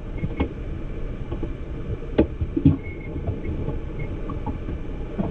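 Low, steady rumbling noise inside a car's cabin, with a few light knocks.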